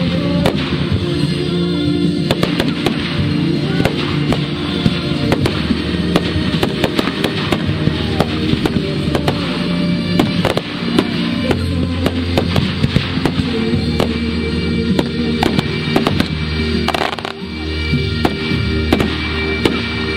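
Fireworks display: aerial shells and fountains going off with many sharp bangs and crackles throughout, over music played for the show.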